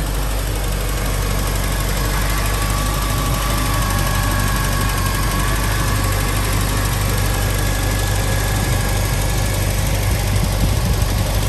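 MG Midget 1500's 1.5-litre four-cylinder engine idling steadily and smoothly, warm after a hot start, running like a little sewing machine.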